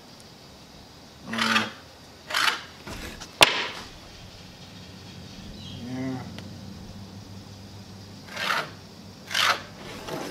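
Pencil scratching across pine plywood as lines are marked: two short strokes about a second in and two more near the end, with one sharp tap between them.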